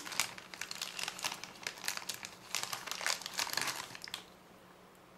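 Clear plastic bag crinkling as it is handled and opened by hand; the crinkling stops about four seconds in.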